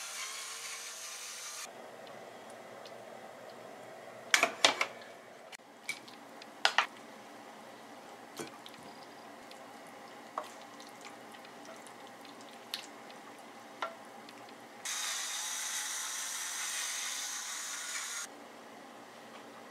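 Hand pepper mill grinding black pepper, a steady rasping hiss for the first couple of seconds. Then a cluster of sharp knocks and scrapes from a spatula against the frying pan and plate as the food is scooped out, with a few light clicks after. About three seconds of grinding again near the end.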